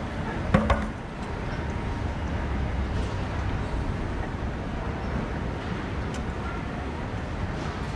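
Steady rumble and hiss inside the cabin of a Bombardier CRJ-1000 regional jet, with two sharp knocks close together about half a second in.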